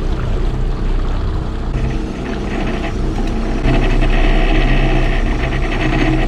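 A motorboat's engine running steadily under water and wind noise, growing a little louder about two-thirds of the way through.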